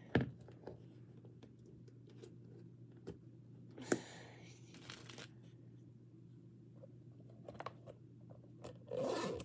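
Hands handling bags and small objects: a few faint taps and knocks, and a louder rustle near the end.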